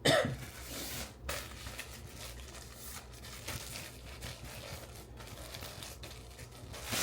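Packaging for clothing being handled: crinkling and rustling with some tearing, as an item is pulled from its bag.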